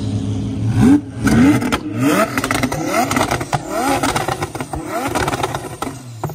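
Twin-turbo Lamborghini Huracan V10 being revved from idle in a string of quick throttle blips, each rising sharply in pitch, with sharp cracks between them. It settles back toward idle near the end.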